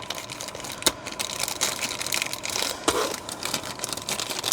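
Crinkling and rustling of small packets of lamp bulbs being handled and opened, with a few sharp clicks.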